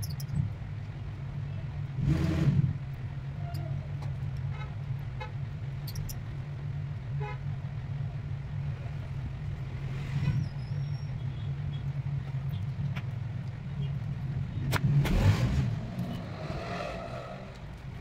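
Steady low engine hum of road traffic, swelling louder twice as vehicles pass, about two seconds and fifteen seconds in, with a few light clicks.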